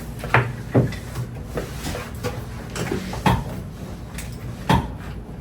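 A patient turning over on a padded chiropractic treatment table: a series of knocks and thumps with softer shuffling between, the loudest about a third of a second in, just under a second in, past three seconds, and near the end.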